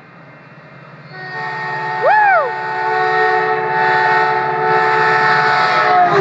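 Caltrain F40PH diesel locomotive's multi-chime air horn sounding one long blast as the train approaches, starting about a second in and held for some five seconds, dropping slightly in pitch near the end as it passes. A short rising-and-falling whoop cuts in over the horn about two seconds in.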